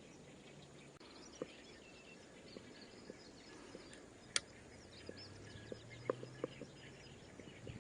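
Quiet outdoor ambience with small birds chirping intermittently, a few light clicks, one sharper click about halfway through, and a faint low hum in the second half.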